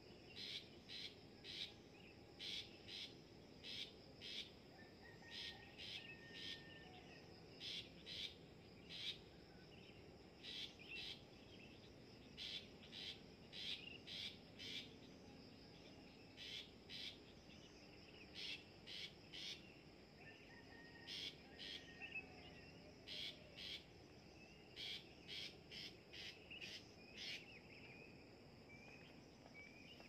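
Long-tailed shrike giving short, sharp chipping calls, about two a second in quick runs with brief pauses, over a faint steady high hiss.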